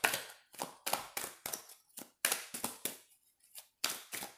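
A deck of oracle cards being shuffled by hand, with a quick, irregular run of crisp card slaps and snaps at about four to five a second.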